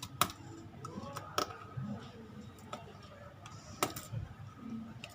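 Small screwdriver and tiny screws clicking while the screws of a Sony A7 II's top cover are driven in: three sharp metallic clicks spread across the few seconds, with fainter ticks between.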